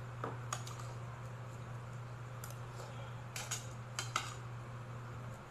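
Spoons and forks clinking against bowls and plates, several short sharp clinks spread through, over a steady low hum that stops near the end.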